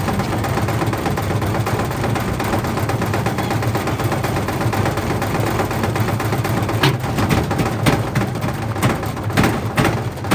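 Whirlpool washing machine running with heavy bricks in the drum: a loud, steady rumble and hum. About two-thirds of the way in, sharp irregular bangs of the bricks striking the drum start, several a second.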